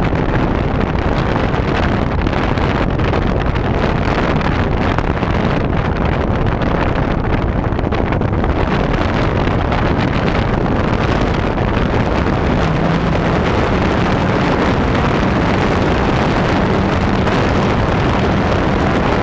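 Heavy wind rush buffeting the on-board camera of an RC model plane in flight, with the plane's motor and propeller droning underneath. About two-thirds in, a steady engine tone comes through the noise and then steps up a little in pitch.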